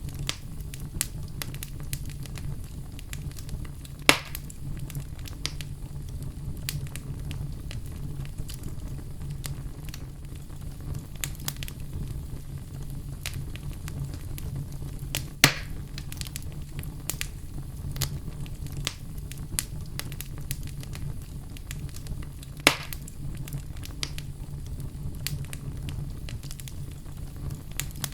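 Wood fire crackling in a fireplace: a steady low rumble of flames under constant small crackles, with three louder sharp pops spread through it.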